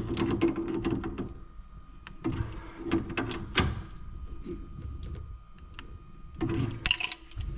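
Clicks and knocks of tools and pipe fittings being handled while copper pipework under a kitchen sink is worked on, in a few busier spells.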